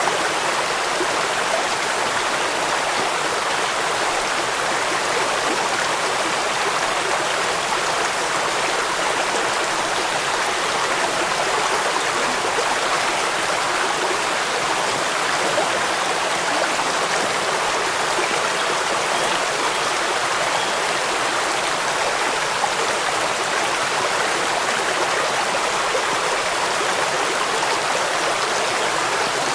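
A stream running over rocks, a steady rushing of water.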